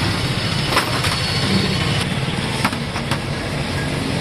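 An engine idling with a steady low rumble, with three sharp clicks, the first about a second in and two close together near the end.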